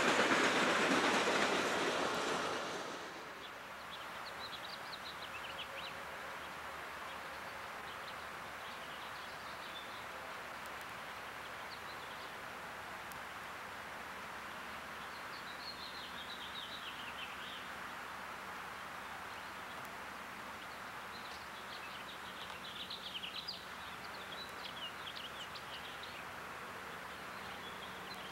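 Freight cars of a passing train rolling by close, a loud rushing rumble that stops abruptly about three seconds in. After that, quiet outdoor background with birds chirping off and on and, from about twelve seconds in, a faint steady low hum of a distant diesel locomotive.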